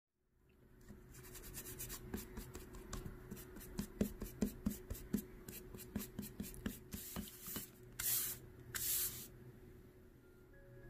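Rubber eraser scrubbing back and forth over a pencil sketch on watercolour paper: a quick run of short rubbing strokes, followed by a few longer hissing swishes.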